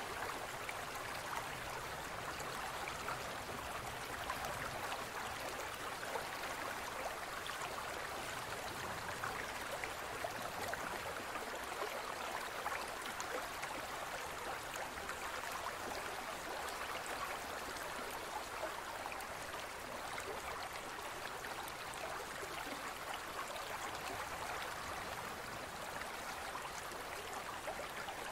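Steady trickling, bubbling water with many fine crackles, running on without change.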